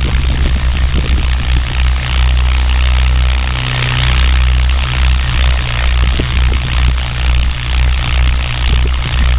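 DJI F550 hexacopter's motors and propellers running in flight, with wind buffeting the microphone: a loud, rough, low noise that swells and dips about once a second.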